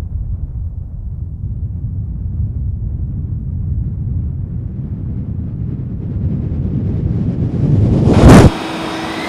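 A low rumble that swells for about eight seconds, growing louder and brighter, and peaks before cutting off suddenly near the end: a cinematic riser sound effect.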